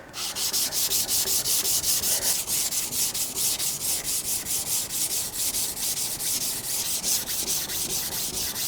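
Sakai Takayuki Tall Bunka's steel blade being ground flat on a Naniwa 220-grit whetstone to thin it: a scraping rasp in quick, even back-and-forth strokes.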